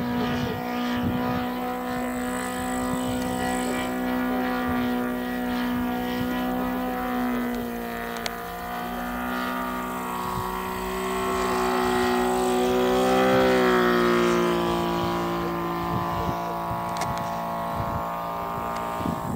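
Saito FA-450R3 three-cylinder four-stroke radial engine of a quarter-scale Waco YMF-5 model biplane running in flight as a steady drone. Its pitch dips about eight seconds in, then rises and grows louder around thirteen seconds.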